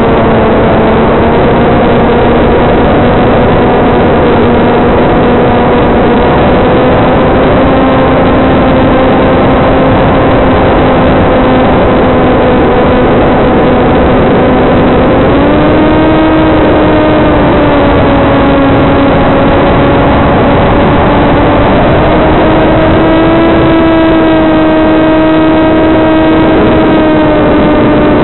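TBS Caipirinha II flying wing's electric motor and propeller droning steadily through heavy radio-link hiss. The pitch steps up about halfway through and again near the end as the throttle and current draw rise.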